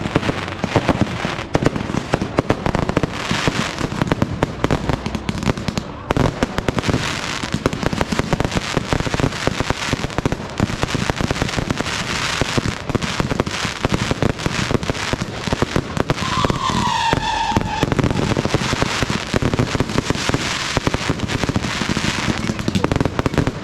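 Fireworks display: constant rapid crackling and popping mixed with loud bangs of bursting shells. About two-thirds of the way through, a short pitched tone falls slightly.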